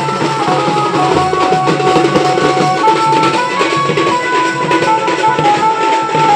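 Music: a melody of held notes stepping up and down over busy, fast drumming.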